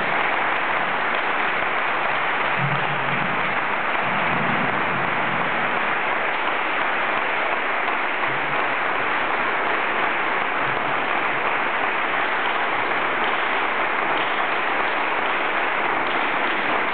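An audience applauding steadily, with no break.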